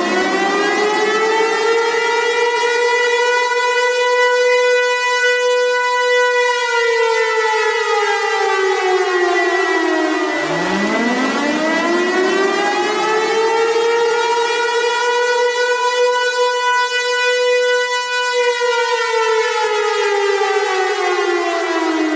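Tornado warning siren wailing in two slow cycles: each time its pitch climbs over several seconds, holds high for a few seconds, then slides back down. A thin steady high tone sounds under it.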